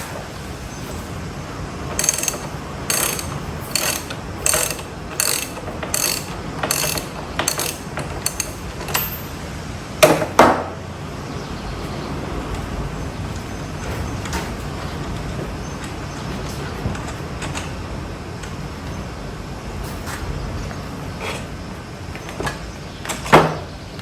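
Hand ratchet wrench clicking in an even run of about a dozen strokes while a wheelchair front caster bolt is loosened, followed by two loud metal clanks and, near the end, another knock as parts are handled.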